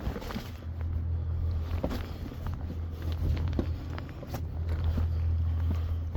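Footsteps crunching and knocking on shoreline rocks, in uneven steps, over a steady low rumble.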